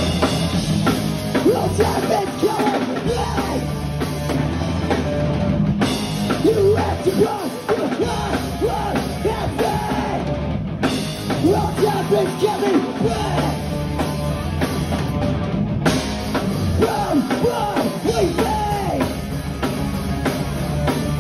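Hardcore punk band playing live: fast drum kit with distorted electric guitars.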